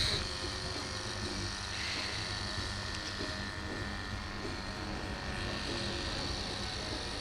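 Electric dog-grooming clippers running with a steady hum as the blade is worked through a Bedlington terrier's curly coat on the neck and throat.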